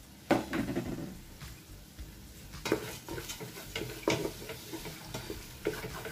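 Wooden spoon stirring sautéing onions with chopped ginger, garlic and green chilli in a stainless steel pot, knocking and scraping against the pot's metal sides at irregular moments, the loudest knock about a third of a second in.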